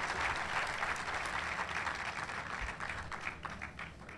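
Large audience applauding, dense clapping that thins out to a few scattered claps near the end.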